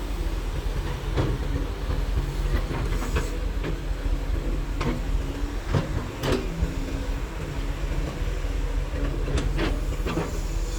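Excavator's diesel engine running steadily while digging, with sharp irregular metallic knocks and clanks every second or so.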